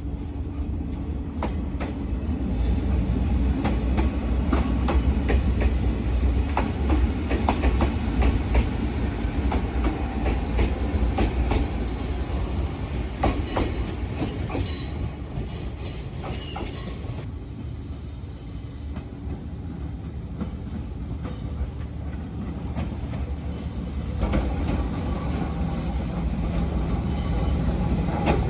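Electric train running along the tracks, its wheels clacking over the rail joints with some faint squealing; the sound swells over the first few seconds and then slowly fades.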